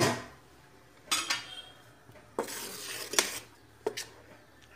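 Steel spoon stirring thick dosa batter in a steel vessel, clinking and scraping against the metal sides: a few sharp clinks, with a scraping stretch and the loudest clink in the middle.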